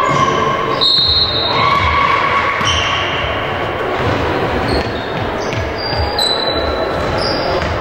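Basketball bouncing on a hardwood gym floor in uneven thumps, with sneakers squeaking on the court in a large, echoing hall.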